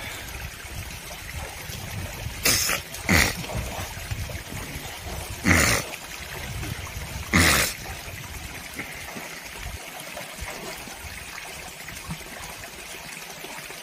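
A mountain stream trickling over rocks into a pool. Four short, loud splashes come in the first eight seconds, as a man swims in the pool.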